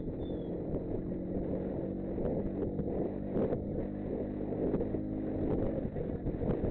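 Motorcycle engine running steadily on the move, with wind buffeting the microphone.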